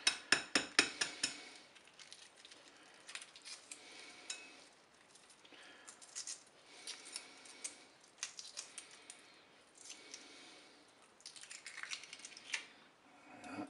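A hard-boiled egg's shell being cracked with a quick run of sharp taps, which stop about a second in. Then come faint clusters of small crackles as the shell is peeled away in pieces.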